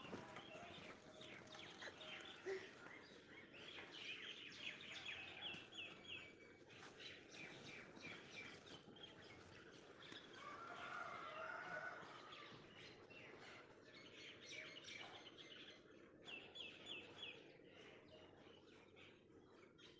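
Faint birds chirping in the background, with a short run of quick high chirps twice, once before the middle and again near the end, over light scattered clicks and taps.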